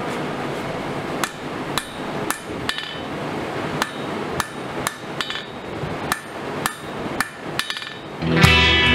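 Blacksmith's hand hammer striking a red-hot steel bar on an anvil, forging it, at about two blows a second, each with a short metallic ring. Music comes in near the end.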